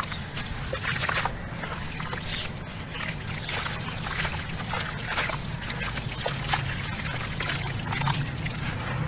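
Wet sand-cement chunks squeezed and crumbled by hand into a tub of water: irregular splashes, sloshing and dribbles of falling grit.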